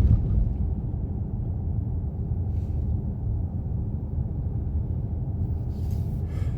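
Steady low rumble of road and engine noise heard inside a moving car's cabin, with a brief louder knock right at the start.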